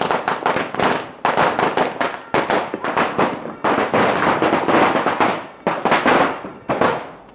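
A Phoenix Fireworks 'Sawa' 1,000-round firecracker string going off: a rapid, uneven run of loud, sharp bangs, several a second, without letup.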